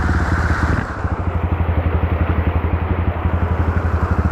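Honda CRF dirt bike's single-cylinder four-stroke engine running at low, steady revs with a fast, even pulse, under the rush of a rocky mountain stream.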